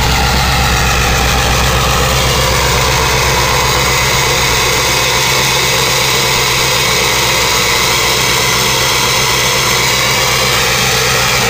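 Ford 7.3 L Power Stroke turbo-diesel V8 of a 2000 F-350 idling steadily while still cold after a cold start. It runs evenly, without the rough cold lope.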